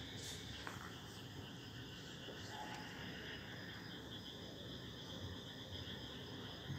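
Crickets chirring steadily and faintly, with a couple of light clicks in the first second.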